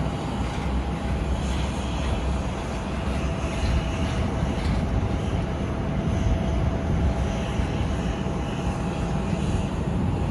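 Jet airliner engines running steadily: a constant low rumble with a faint steady whine over it.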